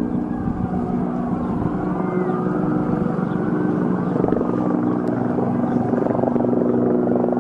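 Helicopter flying overhead, its rotor and engine making a steady, loud drone.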